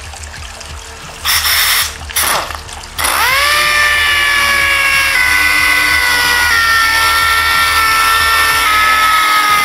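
Air-powered dual-action (DA) sander on a compressor hose: two short hisses of air about a second and two seconds in, then the sander spins up to a steady high whine from about three seconds in. Its pitch sags slightly in a few small steps as it sands the painted fibreglass deck.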